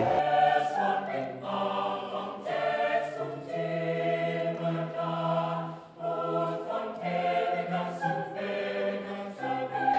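Mixed choir of men's and women's voices singing sustained chords in slow phrases, with a short break about six seconds in.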